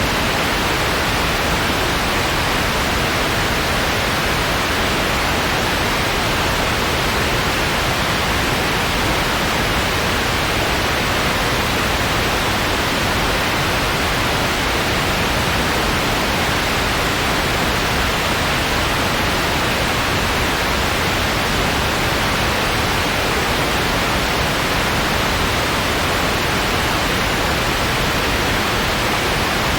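Steady, unchanging white noise, an even hiss with no tones, events or breaks.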